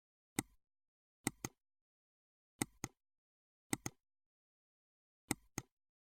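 Computer mouse clicking: five sharp clicks, most of them quick double clicks, spaced about a second apart.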